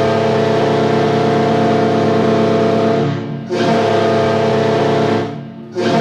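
Carolina Hurricanes goal horn, played dry without reverb: a loud, steady, multi-tone horn blast that dips briefly about three seconds in and again near the end, sounding again after each break.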